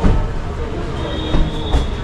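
Ferry terminal hall ambience: a steady low rumble with faint background voices, a sharp knock at the start, and a thin steady high-pitched tone coming in about a second in.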